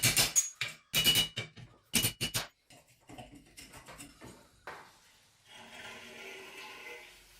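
Workshop handling sounds from an airgun restoration: three groups of sharp knocks and clatters about a second apart, then lighter clicks, and a steady whirring hiss in the last two seconds.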